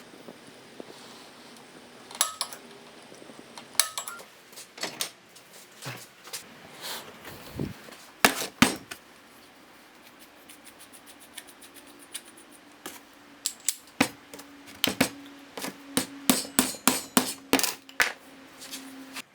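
Irregular metal knocks and clinks from hammering and handling steel parts during workshop fabrication, coming faster and closer together near the end, with a faint steady hum under the second half.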